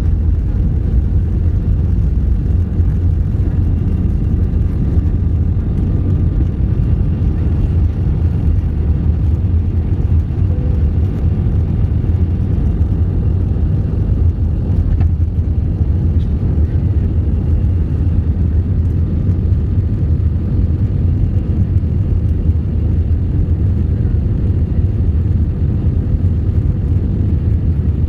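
Jet airliner cabin noise during takeoff and initial climb: the engines at takeoff power make a loud, steady low rumble, with a faint steady whine above it.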